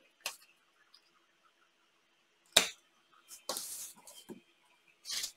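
Skat playing cards being handled on a table: a few short snaps and a brief rustle as a card is drawn from the deck and laid into the spread, the sharpest snap about two and a half seconds in and another near the end.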